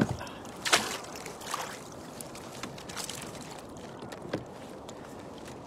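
Wet crab-trap rope hauled hand over hand into a kayak, with steady wind and water noise. A few short sharp knocks and rubs ride on top, the loudest about three-quarters of a second in.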